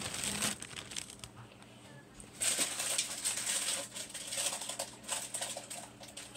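Thin plastic bread bag crinkling in irregular bursts as dinner rolls are handled and pulled out of it, with a quieter pause about one to two and a half seconds in.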